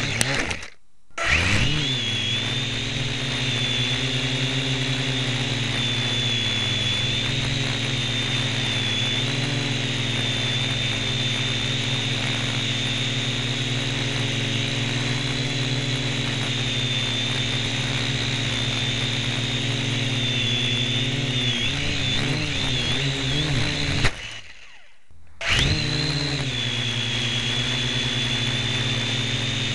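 Syma X1 quadcopter's small electric motors and propellers whining steadily, heard close up from the 808 keychain camera fixed on top. The sound cuts out twice, just after the start and about 24 seconds in, and each time comes back with a rising whine as the motors spin up again.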